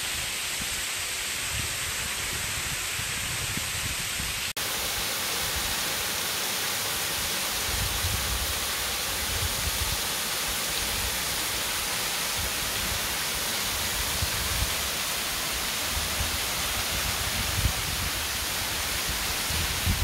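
Small waterfall pouring steadily at close range, a constant hiss of falling water, with uneven low gusts of wind on the microphone.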